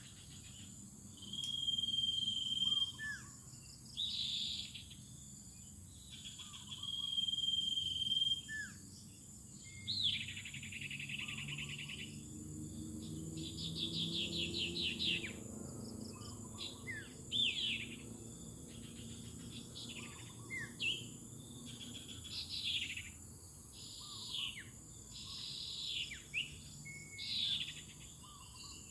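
Birds calling over and over: a clear whistled note about a second long, fast rattling trills and short falling chirps, over a steady high insect drone.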